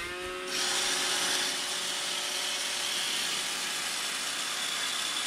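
iRobot Roomba 786 robot vacuum starting up, its motors whining up in pitch in the first half-second and then running with a steady whir and hiss as it sets off for its dock.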